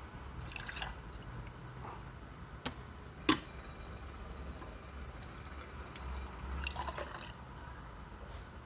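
Rinse water dripping and being poured out of a glass coffee server, with light clinks of glass and plastic as the cone pour-over drippers are lifted and set back on. One sharp clink comes about three seconds in.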